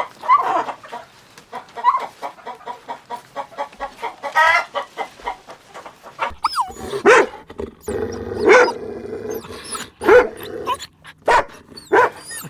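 Animal calls: a run of short repeated calls, then about five louder, sharper calls spaced a second or so apart.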